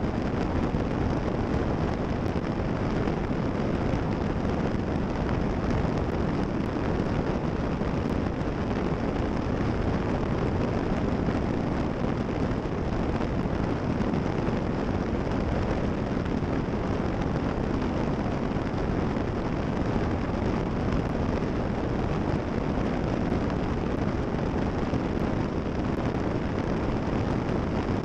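Steady roar of a Cessna 340 in cruise-climb: rushing airflow mixed with the drone of its twin turbocharged six-cylinder piston engines, heard from the tail with wind buffeting the microphone. The sound is a deep, even rumble that does not change.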